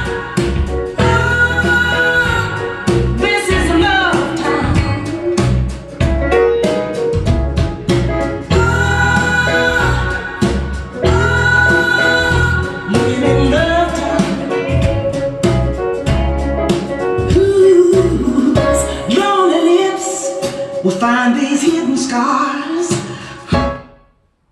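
Lullaby music: a slow song with instruments and a singing voice, which fades and stops about 24 seconds in.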